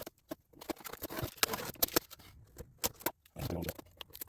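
Plastic iron-on covering film being peeled and crinkled off a balsa model airplane fuselage: scattered sharp crackles and clicks with short rustling stretches.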